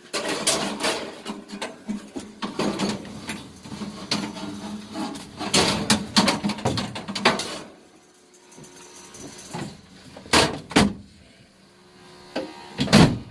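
Clattering and knocking of hard objects being moved about, busy for the first half, over a steady low hum. A few sharp knocks follow near the end.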